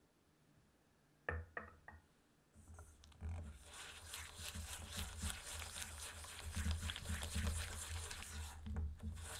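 A few light knocks about a second in. Then, from about three seconds in, a silicone spatula stirs and scrapes soft butter, sugar and egg around a stainless steel bowl in quick, continuous wet strokes.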